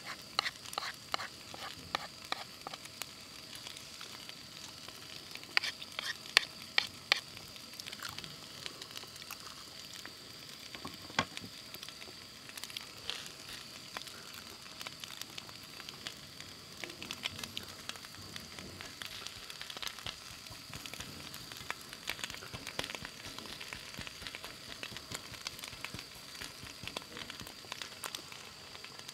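Fried rice with webfoot octopus sizzling steadily in a pan over a portable butane stove, with sharp clicks and scrapes of a metal spoon and chopsticks against the pan, mostly in the first few seconds and again around six to seven seconds in.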